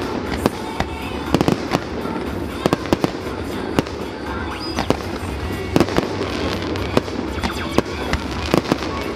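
Fireworks display: aerial shells bursting in frequent, irregular sharp bangs and crackles, about two a second.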